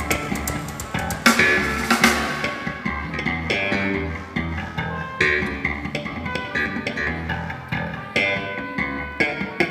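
Live band playing through the PA during a sound check: bass guitar and guitar notes over drum kit, with cymbal crashes a little over a second in and again about two seconds in.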